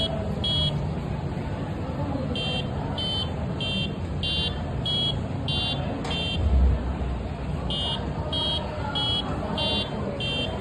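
Piezo buzzer of an Arduino keypad password lock beeping as an alarm, short high beeps about 0.6 s apart in runs of six or seven with pauses between, which signals a wrong password. A low thump comes about six and a half seconds in, over a steady background hiss.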